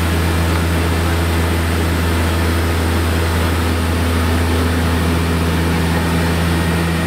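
Steady drone of a small turboprop passenger plane's engines and propellers, heard inside the cabin near the cockpit, with a strong low hum and fainter higher tones holding constant.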